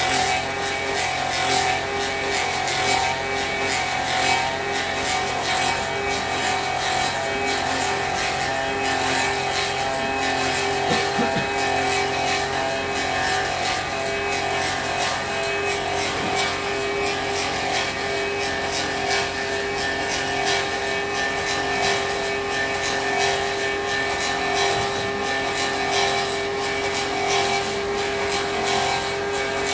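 Clog-making copy lathe running, its motor and spinning cutters carving a wooden clog blank to follow a model shoe. A steady machine hum with a rough cutting noise over it.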